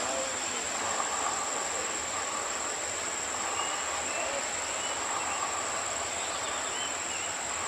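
Jet airliner engines running: a steady roar with a constant high-pitched whine.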